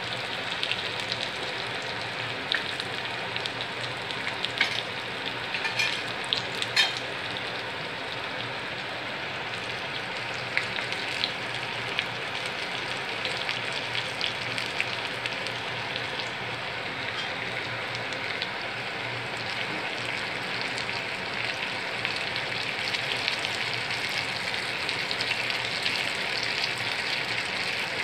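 Tempering sizzling in hot sesame oil in a small pan: sliced small onions, curry leaves and dried red chillies frying. There are a few sharp pops in the first several seconds, and the sizzle grows a little louder near the end.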